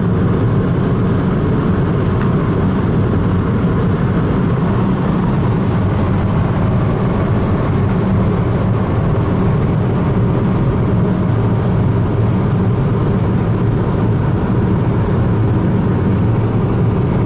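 Steady drone of a car driving at highway speed, heard from inside the cabin: road and engine noise with most of its weight in the low range, unchanging throughout.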